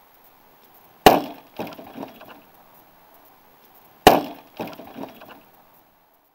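A thrown short sword hitting a wooden plank target twice, about three seconds apart. Each is a sharp, loud wooden impact followed by a few lighter knocks.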